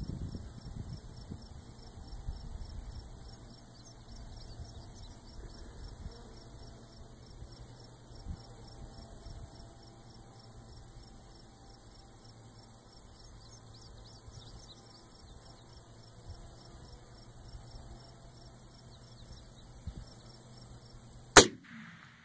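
Crickets chirping steadily in the grass, with wind rumbling on the microphone for the first few seconds. Near the end comes a single sharp AR-10 rifle shot, by far the loudest sound.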